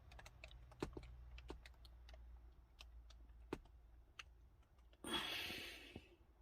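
Faint, scattered clicks and taps of a boxed item and its packaging being handled, with a brief rustle lasting about a second near the end.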